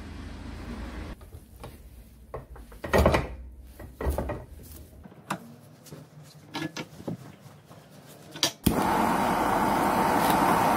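Scattered clicks and knocks as parts of an old jackhammer are handled and clamped in a vise, with two louder knocks about three and four seconds in. Near the end a sharp click is followed by the steady hiss of a blue-flame gas torch, heating the rusted housing to expand the metal.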